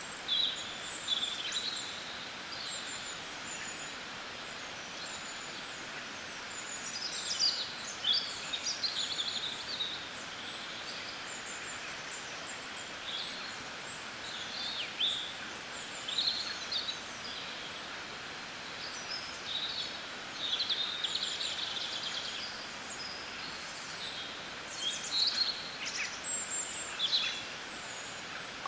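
Several small songbirds singing and chirping, short high trills and chirps overlapping in clusters over a steady background hiss of outdoor ambience.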